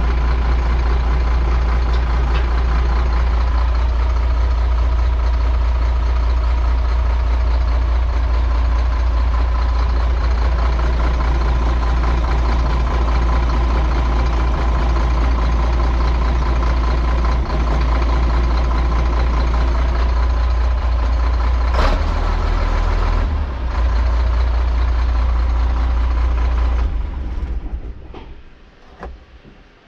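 International DT466 inline-six diesel running steadily just after its rebuild, noisy because the turbo outlet is not yet fitted. Near the end it is shut off and runs down to a stop.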